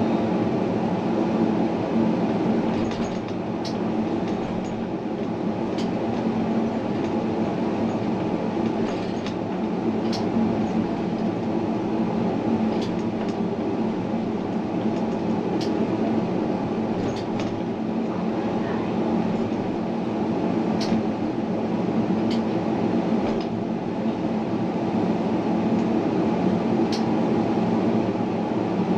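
Tram running along its rails, a steady rumble broken by scattered short, sharp high clicks every second or few.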